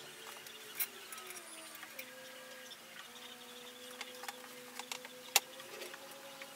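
Small clicks and knocks of metal scooter-frame parts being handled and fitted by hand, with one sharp click about five seconds in, over a faint steady hum.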